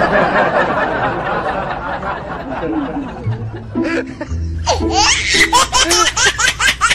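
A dense rustling noise for the first few seconds, then a quick run of high-pitched laughter, about five short rising laughs a second, over music with a steady low note.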